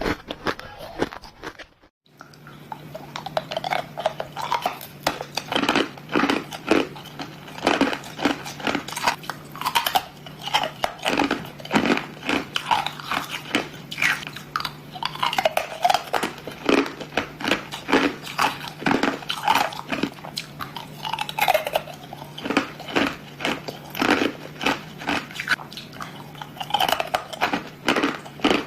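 Solid ice being bitten and chewed, a continuous run of loud, sharp crunches several times a second, after a short silent gap about two seconds in.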